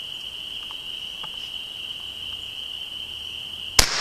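Crickets chirping steadily, then near the end a single loud gunshot: a .22 LR round fired from a 20-gauge shotgun fitted with a .22 adapter insert, its report echoing away.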